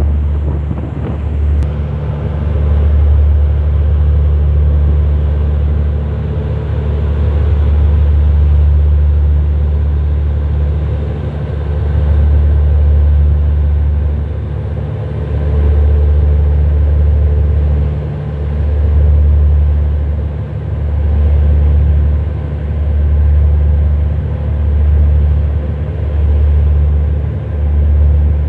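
Wind buffeting the microphone in a deep rumble that surges and dips every second or two, over a steady low mechanical hum like a ship's engine.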